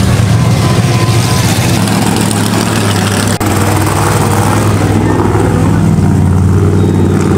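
Monster truck engine running steadily with a deep, even rumble, which cuts out for an instant about three and a half seconds in.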